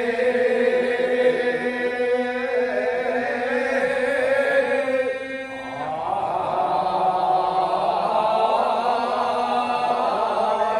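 A group of men singing iwai kiyari, the traditional Edo celebratory chant, unaccompanied in long drawn-out held notes. About halfway through, one phrase dies away and the next starts with a fuller sound of many voices.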